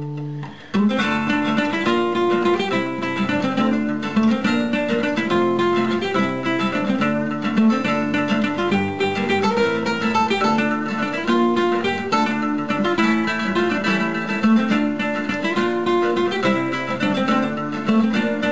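Background music of plucked acoustic guitar, starting suddenly about a second in.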